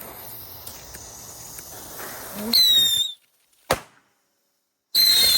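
Bottle rockets going off: a fuse hisses, then a rocket fires with a short, shrill whistle that dips slightly in pitch. A single sharp pop follows, and another shrill rocket whistle starts near the end.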